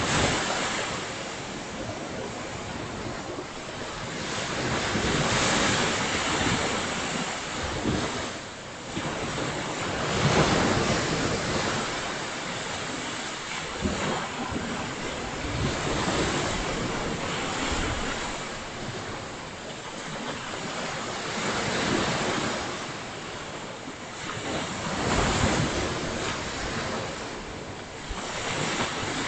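Ocean surf breaking on a beach, the wash of the waves swelling and easing every five or so seconds, with wind noise on the microphone.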